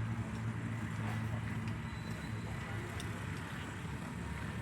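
A motor running with a steady low hum, easing off a little about two seconds in.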